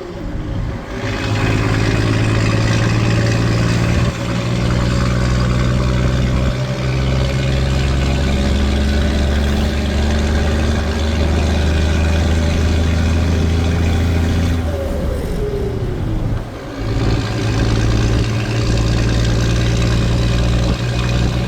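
Scania 4-series truck's diesel engine running loud and steady on the road. About fifteen seconds in, the revs drop briefly and then build again, as at a gear change.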